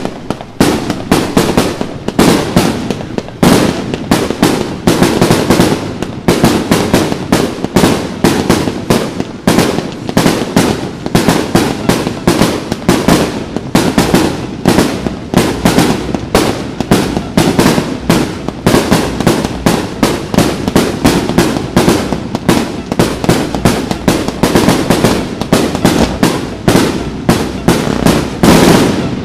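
Fireworks display at full pace: a rapid, continuous barrage of loud bangs, several a second, with no pause.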